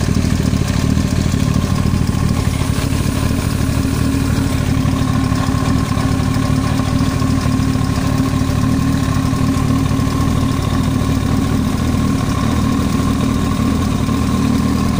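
Yamaha YZF-R1 inline-four engine idling steadily, with a knocking noise that the owner places in the cylinder head.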